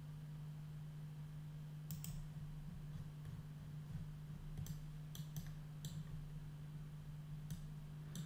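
Faint, scattered clicks of a computer mouse and keyboard, about seven in all, over a steady low hum.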